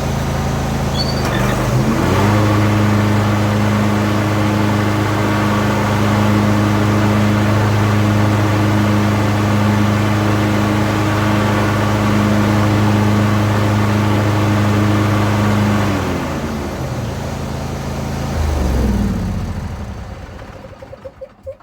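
Riding lawn tractor engine running, speeding up about two seconds in and holding a steady high speed, then slowing after about 16 seconds with a low thump and winding down to a stop.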